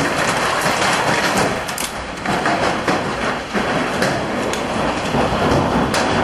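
Hailstorm: hailstones and heavy rain pelting down, a dense, continuous clatter of many small impacts.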